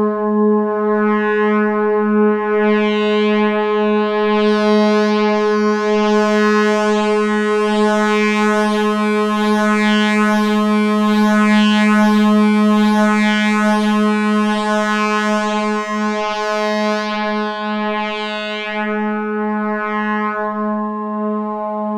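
Modular synthesizer drone held on one steady pitch near 210 Hz, the 'lunar' 210.4 Hz tuning, with a stack of overtones that grows brighter through the middle and mellows again toward the end. The upper overtones waver because one oscillator drifts off the tuning.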